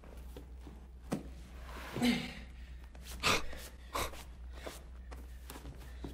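A man gasping and straining for breath as he heaves himself into a leather chair, with a few sharp knocks and thumps from his movements, over a steady low hum.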